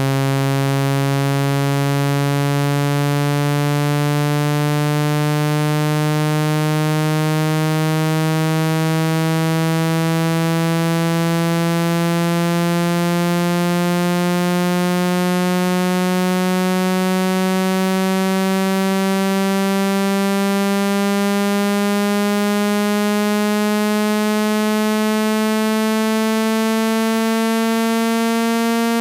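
Synthesized speaker-cleaning tone meant to shake water and dust out of a phone speaker: a loud, steady, buzzy low tone rich in overtones, rising slowly and evenly in pitch.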